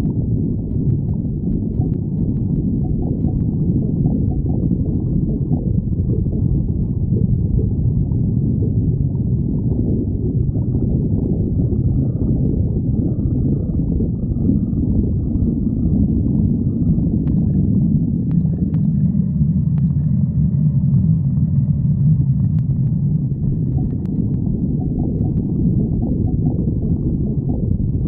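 Human stomach growling: a continuous low rumbling and gurgling, with faint higher squeaky tones in the middle.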